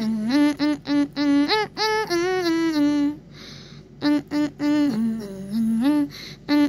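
A voice humming a simple tune in short, level notes that step between a few pitches, with a short break about halfway through.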